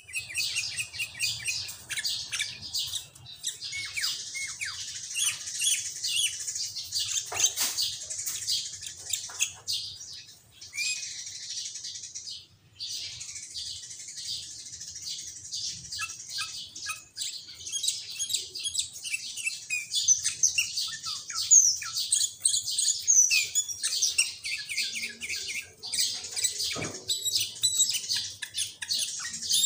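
Sooty-headed bulbul (kutilang) singing energetically, a dense stream of quick chirps and short whistled glides, its song laced with mimicked greater green leafbird (cucak ijo) phrases. There is a short break about halfway through.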